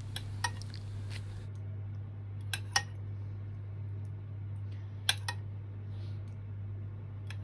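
A spoon clinking against a plate and dish in short pairs of clicks, about every two and a half seconds, as tomato sauce is spooned over stuffed eggplant rolls, over a steady low hum.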